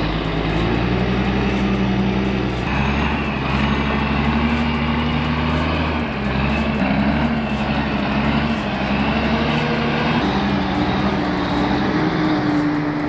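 Old mechanically-injected diesel engine of a loaded logging truck labouring under heavy load on a steep hairpin climb. It runs steadily, with its pitch shifting a few times.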